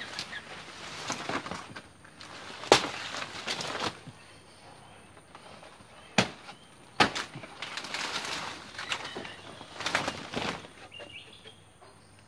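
Dry banana leaves rustling and crackling as they are pulled and torn from a banana plant, in bursts, with a few sharp snaps: one about three seconds in and two a few seconds later.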